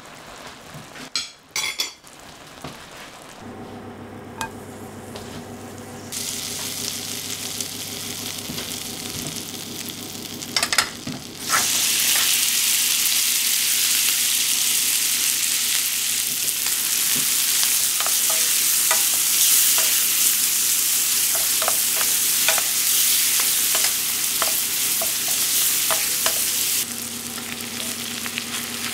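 A metal spoon clinks against a frying pan as glaze is spooned over pan-fried chicken thighs. Then sweet corn kernels sizzle in a small steel frying pan; the frying gets much louder about twelve seconds in, with scattered pops, and eases a little near the end.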